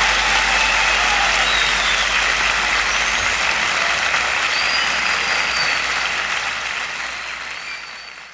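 Live concert audience applauding, with a few whistles over the clapping, fading out over the last couple of seconds.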